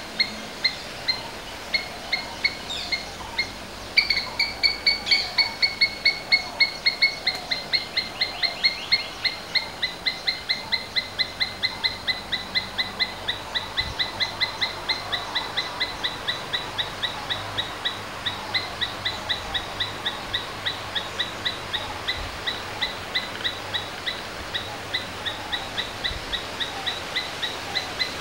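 Asian palm squirrel calling a long, even run of short, high chirps, about three a second. The chirps get louder and a little higher about four seconds in, then slowly drop back in pitch and soften.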